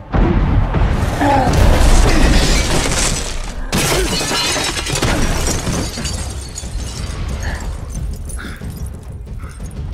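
A sudden loud crash with glass shattering and a deep rumble, as windows blow in under an impact; a second crash hits about four seconds in, then falling debris and rumble slowly die down.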